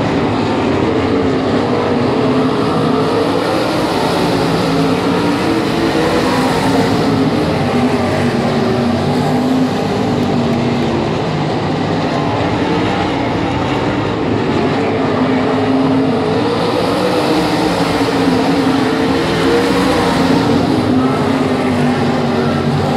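Several winged sprint cars' V8 engines running together at moderate revs, their pitch gently rising and falling as they circle the dirt oval.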